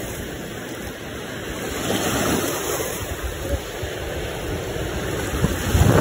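Ocean waves washing over the sand at the water's edge, with wind rumbling on the microphone, growing louder near the end.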